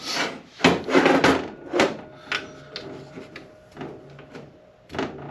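A string of metallic clunks, clicks and scrapes as a 47RE/48RE automatic transmission's front pump is handled and turned on a stainless-steel workbench while its bolts are being torqued, with a faint ringing of metal in the middle. The loudest knocks come at the start and about a second in.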